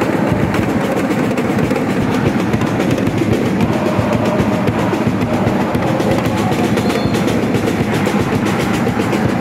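A large crowd of school basketball supporters singing a chant in unison over continuous drumming, loud and unbroken.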